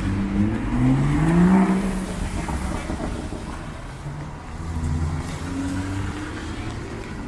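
Street traffic on a wet road: a vehicle engine accelerating, its pitch rising over the first two seconds, with a second, gentler rise in pitch about five seconds in.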